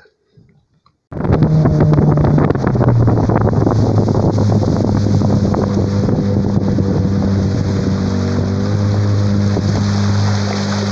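Outboard motor of a small aluminium boat running steadily under way, starting suddenly about a second in, with wind buffeting the microphone and the rush of the wake.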